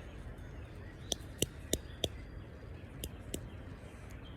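Rubber bands being stretched and snapped onto a watermelon: a scattering of sharp, irregular snaps and clicks over a low background.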